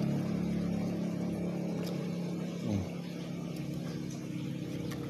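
A motor vehicle engine running steadily, its pitch dipping briefly about two and a half seconds in, then slowly fading.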